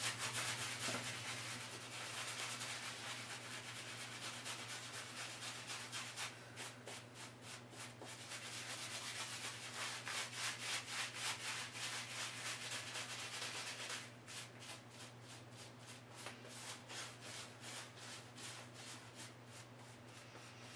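Badger shaving brush scrubbing shaving cream on a face to build lather, in quick, rhythmic strokes several a second; the strokes get softer about two-thirds of the way through.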